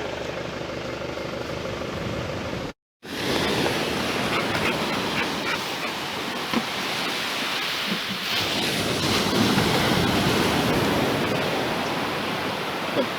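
Steady outdoor rushing noise, like surf or wind on the microphone, broken by a brief dead-silent dropout about three seconds in.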